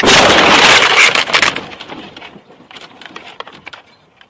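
Car crash recorded by a dashcam: loud crunching and clattering with many sharp cracks for about a second and a half, then fading into scattered clicks and rattles.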